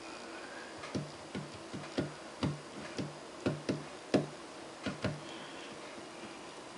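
Sunbeam C30 Coffeemaster vacuum coffee maker's lower bowl ticking and popping as the water heats toward the boil. About a dozen irregular sharp pops come over five seconds, each with a short low ring.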